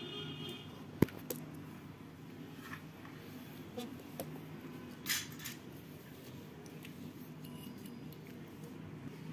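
Small parts and a circuit board being handled on a rubber work mat: scattered light clicks and taps, the sharpest a second in, and a brief scrape about five seconds in, over a low steady hum.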